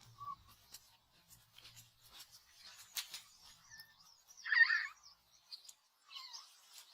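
A few short, high chirping animal calls, the loudest about four and a half seconds in, over faint scattered small clicks.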